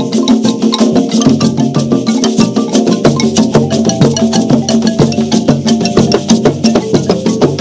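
Background music with a quick, even percussion beat over pitched instrument notes.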